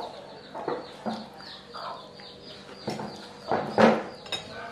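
Chickens clucking: a string of short, separate calls, the loudest about four seconds in.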